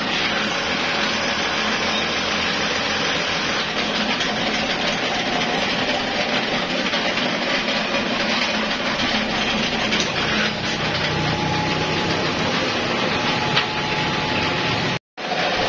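Steady running noise of workshop machinery, with a few light knocks. The sound breaks off for a moment near the end.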